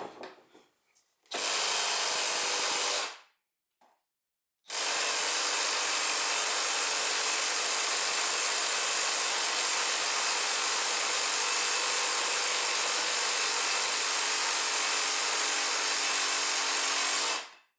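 Milwaukee M12 Fuel 3/8-inch cordless impact wrench hammering on a bolt, once briefly and then in one long, steady run of about thirteen seconds that stops sharply near the end. The wrench is not reaching 120 ft-lb; the owner suspects the test rig is flexing and absorbing the impacts.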